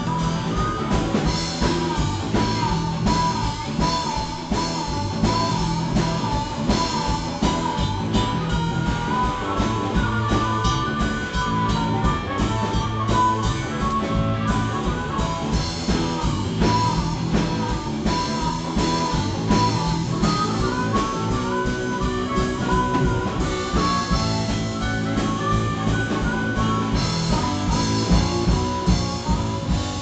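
Live rock band playing: a melodic guitar line over bass and steady drums.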